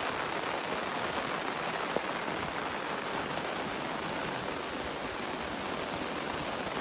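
Steady rain falling, an even hiss with one small tick about two seconds in.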